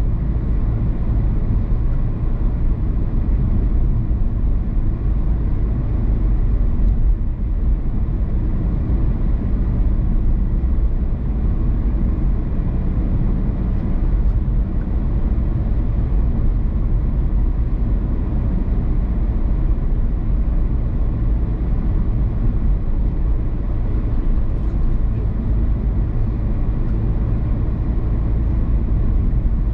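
A car driving at a steady pace: continuous low road and engine rumble with no changes.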